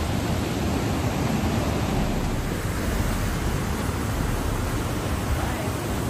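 Strong wind buffeting the microphone: a steady rushing noise, heaviest in the low end.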